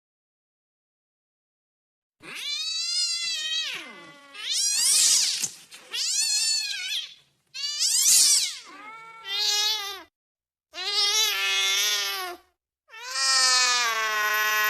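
Domestic cat yowling angrily: after about two seconds of silence, a run of about seven long, wavering calls with short breaks between them.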